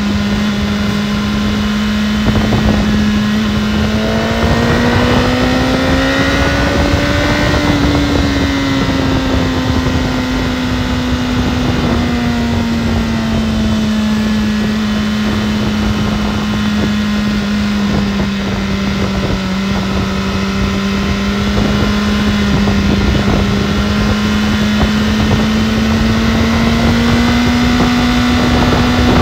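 BMW S1000RR's inline-four engine running at a steady engine speed, its pitch rising a little about six to eight seconds in and then easing back, over a steady rush of wind noise.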